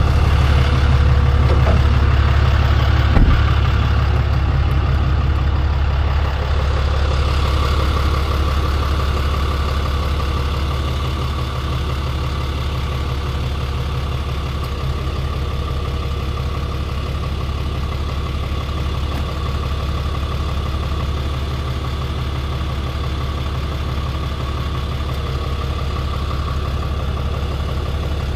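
A truck engine idling steadily, with a single sharp knock about three seconds in.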